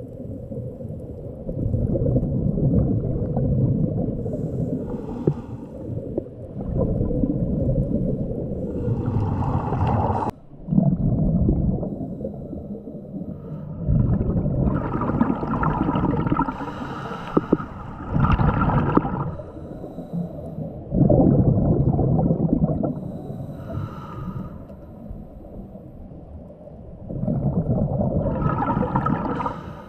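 A diver's breathing heard underwater through the camera housing. It comes as a long low bubbling rumble every few seconds, some breaths carrying a higher hiss.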